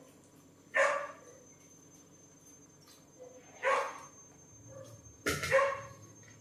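A dog barking a few times, short separate barks spaced one to three seconds apart.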